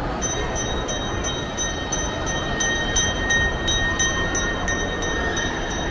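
Indoor shopping-mall ambience: a steady din of background noise, with a faint high ringing tone and a quick, even high ticking about three times a second that starts just after the beginning.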